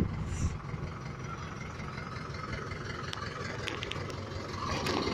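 Ice cream van's engine idling steadily, with a few faint clicks about three to four seconds in.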